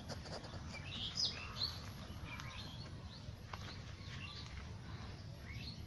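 Small birds chirping: scattered short, high calls over a low, steady background noise.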